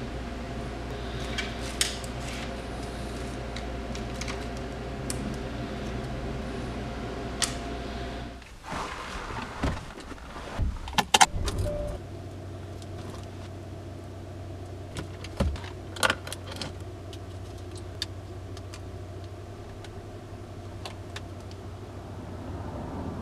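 Small clicks and rustles of dash cam cables and plastic packaging being handled, over a steady low hum. About eight seconds in the sound changes: a cluster of loud clicks and clatters, then a car cabin's steady low hum with a few sharp clicks as the dash cam is pressed onto its windscreen mount.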